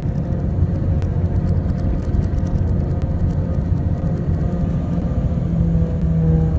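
Steady low rumble of a moving vehicle, with a few held low tones over it.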